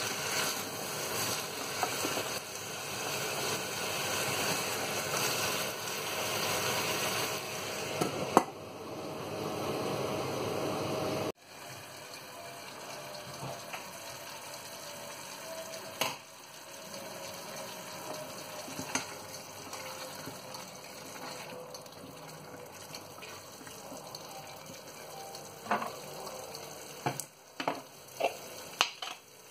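Cubed butternut squash sizzling and bubbling in a hot stainless steel pot, stirred with a spatula. About eleven seconds in, the sound drops abruptly to a quieter steady cooking sound, broken by a few sharp clicks near the end.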